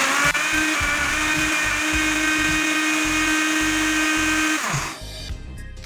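Countertop blender motor running with a steady whine as it whips garlic, egg white and oil into a thick mayonnaise emulsion, then switched off about four and a half seconds in, its pitch falling as it winds down.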